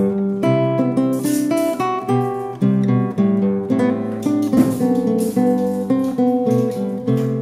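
Instrumental background music with strummed and picked acoustic guitar chords.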